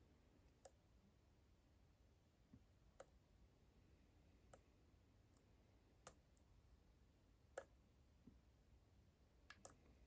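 Faint, sparse clicks of a hook pick working the pins of a pin-tumbler lock cylinder under tension during single-pin picking, about six clicks spaced a second or two apart over a quiet background.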